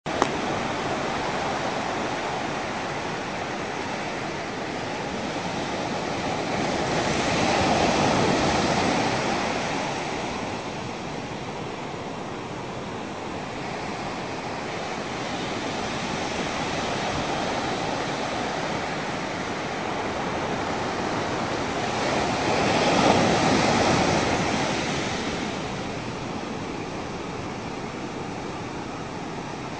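Ocean surf: a steady wash of waves that swells louder twice as waves break, about eight seconds in and again after twenty seconds.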